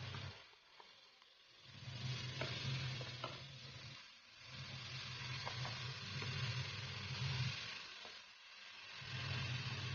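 Chopped onions sizzling in hot butter in a non-stick pan while a wooden spatula stirs them, with faint scrapes and taps of the spatula on the pan. The sizzle swells and dips a few times, over a low hum that comes and goes.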